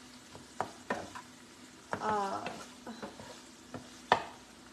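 A few light clicks and knocks of objects being handled as someone reaches and rummages beside her, the loudest knock about four seconds in. A short wavering pitched sound comes about two seconds in, over a faint steady hum.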